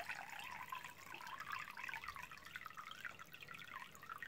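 A thin stream of orange blossom water trickling from a bottle into a glass of milk, filling the glass to the top.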